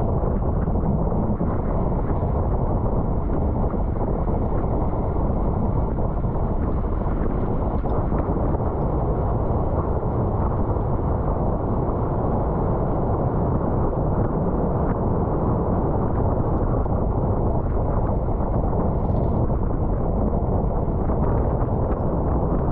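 Steady wind noise buffeting a bike-mounted camera's microphone while riding at race speed, a dense low rush with no breaks.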